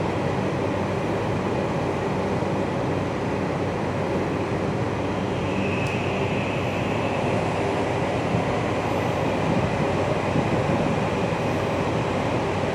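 Tokyu 3020 series electric train running, heard from inside the passenger car: a steady rumble of wheels and running noise, with a faint high whine for a couple of seconds near the middle.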